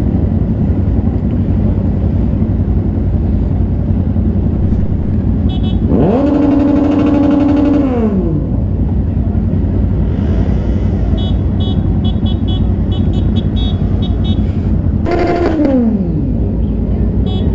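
Motorcycle on the move: a steady rumble of engine and wind noise, with an engine revving up, holding and dropping back twice, about six seconds in and again near the end. A run of quick, light ticks comes in between.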